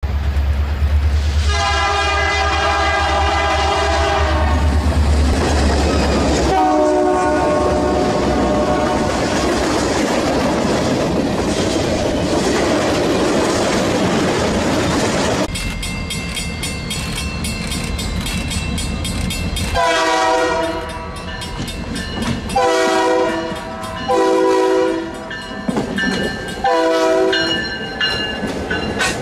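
Diesel freight locomotive horns sounding over the rumble of moving trains. There is a long blast near the start and another a few seconds later. Later come four blasts of about a second each in quick succession. Between the horns, the engines and wheels rumble and clatter along the rails, growing loud near the end as a locomotive passes close by.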